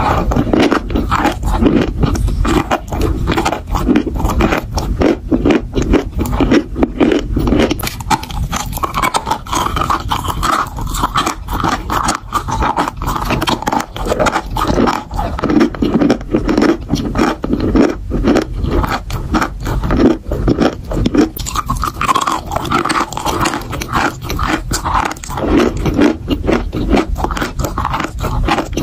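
Dry chalk being chewed close to the microphone: a dense, continuous run of gritty crunches and scrapes as chunks are bitten and ground between the teeth.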